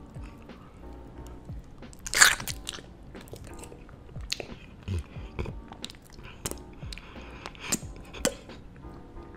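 Close-miked eating sounds of a person biting into and chewing a chunk of honeycomb, in a run of short irregular bites with one loud bite about two seconds in. Soft background music plays underneath.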